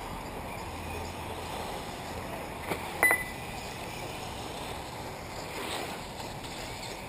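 Steady outdoor wash of wind and faint RC model cars racing on a dirt track, with two sharp clicks about three seconds in, the second ringing briefly.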